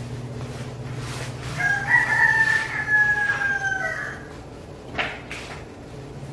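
A rooster crowing once, one long call of about two seconds that drops in pitch at the end. A short crackle of plastic packaging being handled follows about five seconds in.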